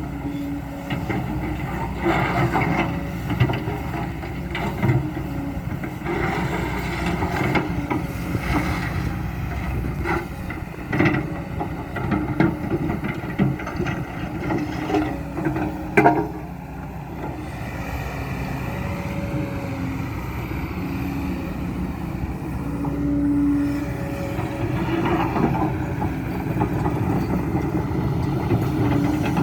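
Kobelco SK200-10 excavator's diesel engine running steadily under working load, with its hydraulics and a few sharp knocks from the digging.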